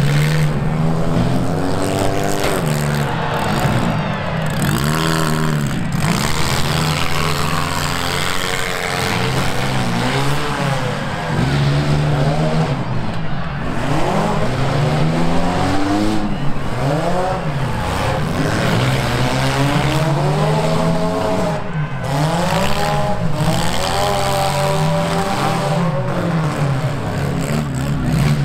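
Several demolition derby cars' engines revving over and over, each rising and falling in pitch, over a steady low drone of engines.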